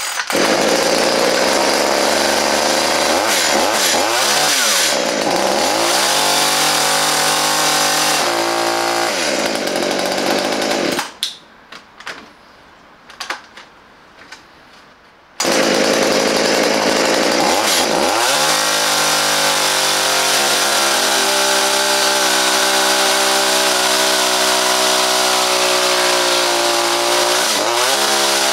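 Parkside top-handle petrol chainsaw's two-stroke engine running and being revved, its speed dropping and rising again several times. About 11 s in the engine stops, leaving a few clicks and rattles. About 15 s in it starts again abruptly and runs on steadily, with one more dip and rise in speed near the end.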